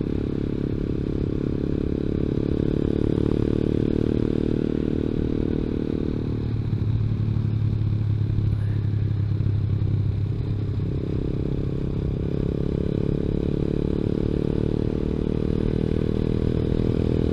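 Zongshen ZS190 single-cylinder four-stroke mini-motorcycle engine running steadily under way. About six seconds in the engine note thins out for roughly five seconds, then fills back out.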